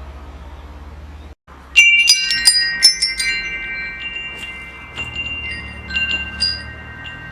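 Wind chimes ringing: a quick flurry of strikes about two seconds in whose clear tones hang on, then a few lighter strikes later. Before them a low steady hum runs, broken by a brief gap in the sound.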